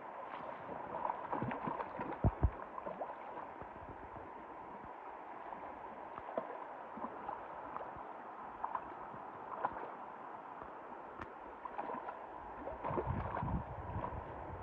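Shallow river water running and gurgling over stones, with small scattered splashes. Near the end there is louder splashing in the water.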